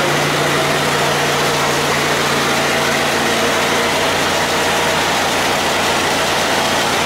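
1925 Ford Model T truck's four-cylinder flathead engine idling steadily.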